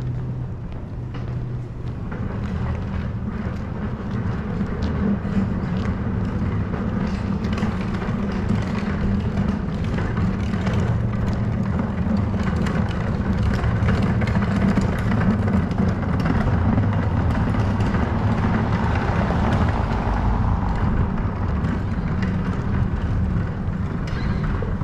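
Outdoor city street ambience heard while walking: a steady low rumble of distant traffic, swelling a little about two-thirds of the way through.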